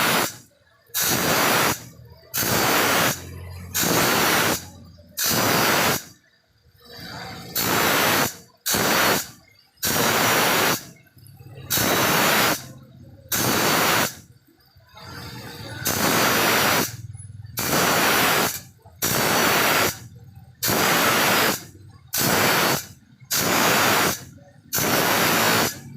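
A file rasping across a hand saw's teeth in steady strokes, about one a second, with a couple of short pauses: the saw being sharpened.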